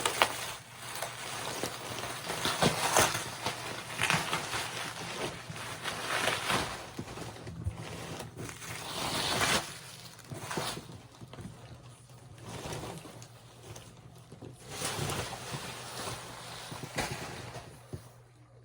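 Packaging being ripped and rustled by hand, in repeated noisy swells with a few sharp crackles.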